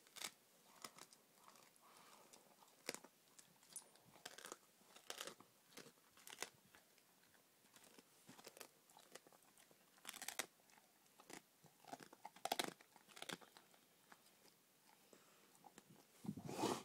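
A dog crunching and chewing through a raw rabbit rack, the bones cracking under its teeth in irregular sharp crunches.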